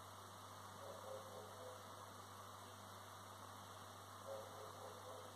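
Near silence: a faint, steady low hum under light background hiss.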